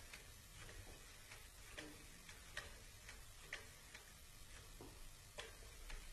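Near silence with faint, sharp clicks at irregular intervals, roughly one every half second to a second.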